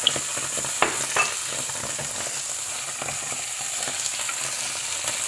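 Onions and sliced pepperami sizzling in a frying pan with tomato pulp just poured in, stirred with a wooden spoon. A couple of light knocks come about a second in.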